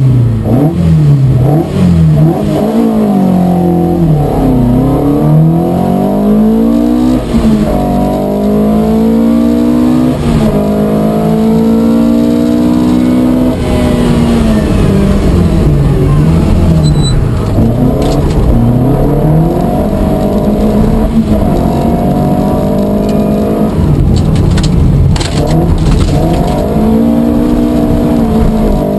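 Opel Manta rally car's engine heard from inside the car at full stage pace, its pitch climbing under hard acceleration and dropping at each gear change and under braking, over and over. A few sharp knocks come near the end.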